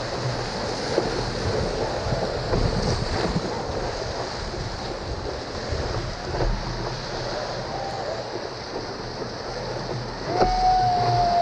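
Breaking whitewater rushing and hissing around a surfboard riding a wave, close to the board-mounted microphone, with wind buffeting the microphone. Near the end a brief steady high tone, about a second long, cuts in over the surf.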